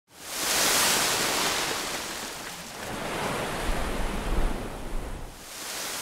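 Intro sound effects for an animated logo: a rushing whoosh that swells up within half a second and slowly fades. A deep low rumble comes in about three and a half seconds in, and a second, softer whoosh swells near the end.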